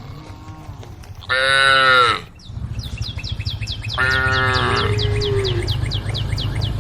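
Cows mooing to the herd: two loud calls, the first short, the second longer and falling in pitch, over a steady low rumble and a quick run of high chirps.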